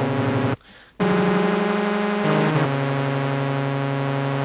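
Held synthesizer notes played through an Earthquaker Devices Pyramids flanger pedal, the flanging sweeping through the tone. The notes break off briefly about half a second in, then change pitch a couple of seconds in.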